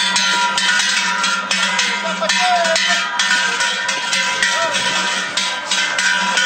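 Bells worn by a team of oxen hauling a cart, clanking irregularly and continuously as the animals walk, with their ringing tones hanging on between strokes.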